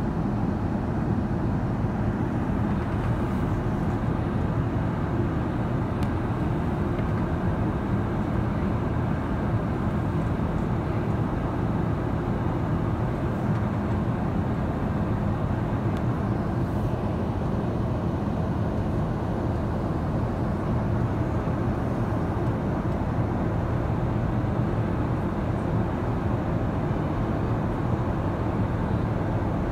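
Steady cabin drone inside an Airbus A380-800 in flight: the low hum of its Engine Alliance GP7200 turbofans mixed with airflow rush, heard from a window seat on the upper deck.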